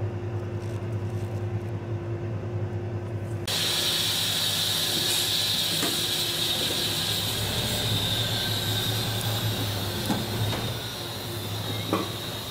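Semi truck's diesel engine idling steadily, with a steady hiss joining suddenly about three and a half seconds in.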